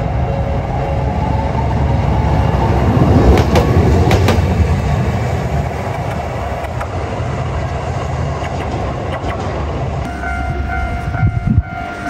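Toden Arakawa Line tram running over the rails at a level crossing: a steady rumble of wheels on track, loudest about three to four seconds in, with a few sharp clacks as the wheels cross rail joints. Near the end a level-crossing warning bell starts ringing.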